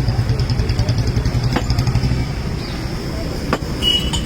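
Street noise dominated by a motor vehicle engine running with a rhythmic low rumble that fades after about two seconds, with a few sharp clicks and faint background voices.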